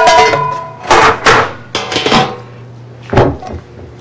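Kitchen clatter: loud, uneven knocks and bangs of metal kitchenware, some with a brief metallic ring, about five in all.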